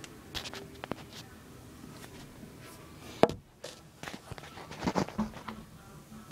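Scattered clicks, knocks and rustling in a small room, with one sharp, loud knock about three seconds in and a cluster of knocks about five seconds in.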